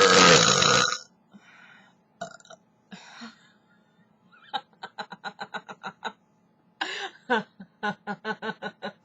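A loud, deliberate human belch lasting about a second. It is followed by softer scattered throat sounds, then two runs of quick, evenly spaced short sounds, about six a second.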